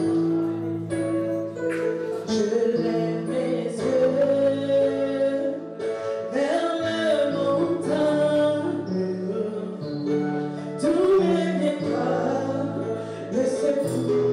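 Congo gospel music: voices singing over held instrumental chords.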